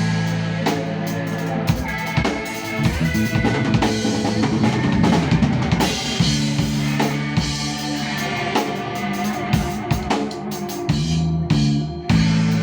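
Live band playing: a drum kit beating steadily over held bass notes and other instruments.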